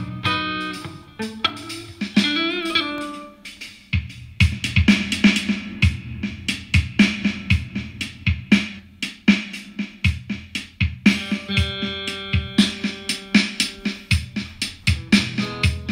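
Background music led by a plucked guitar, with a steady drum beat coming in about four seconds in.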